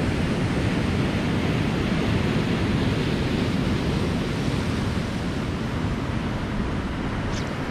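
Ocean surf breaking and washing over a rocky shore: a steady, loud rushing noise that eases slightly about five seconds in.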